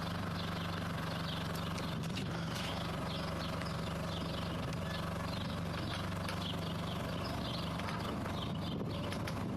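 A short, high squeak repeating rapidly and unevenly over a steady low engine hum. It is a squeak whose cause is unknown.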